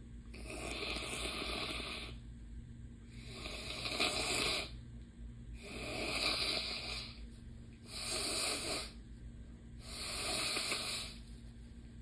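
A person blowing their nose hard into a tissue: five forceful blows of about a second each, clearing a congested nostril on the more swollen side.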